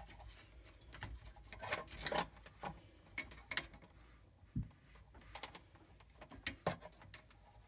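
Irregular light clicks and rustles of hands handling and tucking wires and plastic parts in a refrigerator's freezer during a defrost heater repair.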